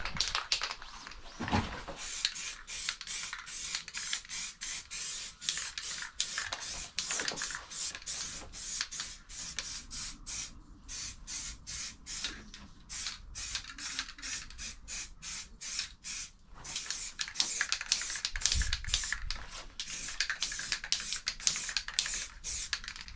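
Aerosol spray paint can hissing in many short bursts, a couple a second, as black paint is sprayed onto a stainless motorcycle exhaust pipe.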